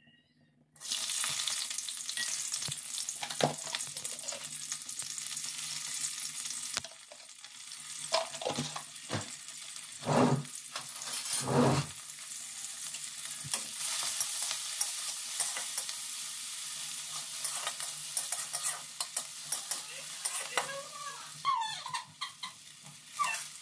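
Onions hitting hot oil in a metal kadhai, starting a sudden loud sizzle about a second in, which goes on steadily as they fry. A ladle stirs and knocks against the pan now and then, with two louder knocks in the middle.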